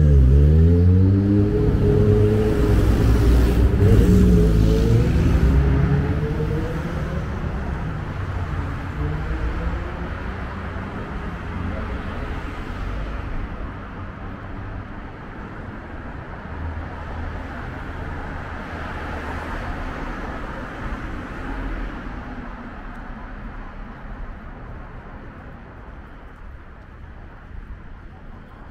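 Street traffic: a car accelerates past in the first few seconds, its engine rising in pitch, then the traffic noise fades gradually.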